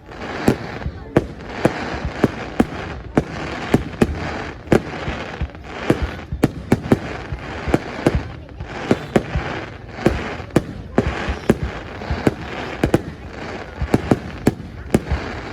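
Aerial fireworks display: a rapid, irregular run of sharp bangs, several a second, over continuous crackling.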